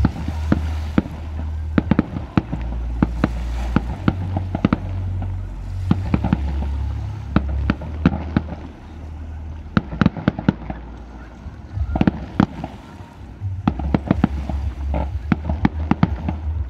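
Aerial fireworks going off: a rapid, uneven run of sharp bangs and crackling bursts over a low rumble, thinning out briefly about two thirds of the way through before picking up again.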